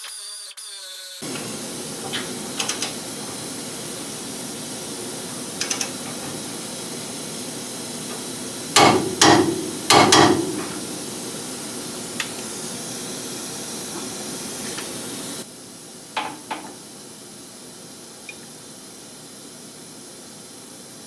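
Metal tools working on a truck's front spindle and ball-joint studs. There are a few light clicks, then a quick cluster of four loud metallic impacts about nine seconds in, and two lighter knocks later, all over a steady hiss.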